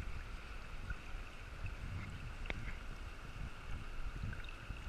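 River water rushing past a raft, with a fluttering low rumble of wind on the microphone and a single light knock about halfway through.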